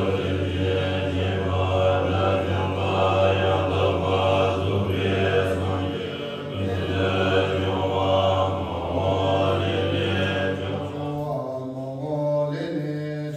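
Monks of a Bon monastery chanting together in unison, a low steady drone under voices that swell and fall in a regular rhythm. About eleven seconds in the chant changes to a thinner, higher line.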